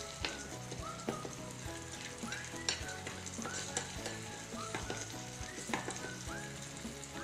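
Curry gravy sizzling in a small steel pan while a metal spoon stirs it, with irregular clicks and scrapes of the spoon against the pan.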